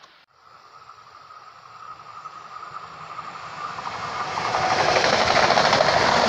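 Eurobahn Stadler FLIRT electric multiple unit approaching and passing close by. Its wheel and rail noise swells over about four seconds, with a steady high whine during the approach, into a loud rush as the cars go past.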